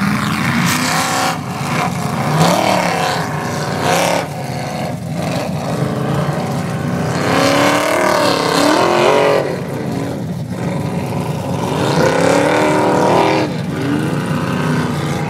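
Formula Offroad competition car's engine revving hard in repeated rising and falling surges under heavy load as it climbs a steep sand hill.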